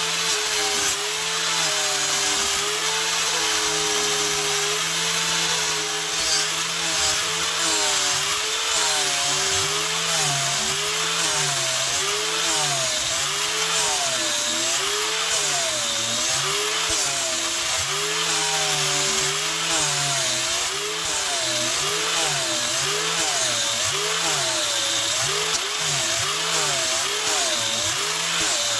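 An electric grinding machine runs with a steady abrasive hiss. For the first several seconds its motor hum is fairly even; after that the pitch dips and recovers about once a second, the motor slowing each time the blade is pressed against it.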